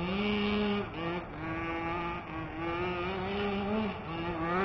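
A 1/5-scale gas RC truck's small two-stroke engine revving in repeated bursts, its pitch rising and falling as the throttle is worked on and off.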